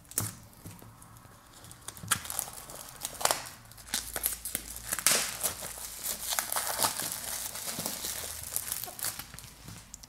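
Plastic shrink wrap being torn and peeled off a cardboard product box, crinkling and crackling in irregular spells, busiest in the middle.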